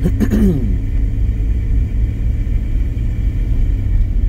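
Steady low rumble inside a pickup truck's cab as it drives along a snow-covered road, the engine and mud-and-sand tyres running on snow. A brief gliding pitched sound comes right at the start.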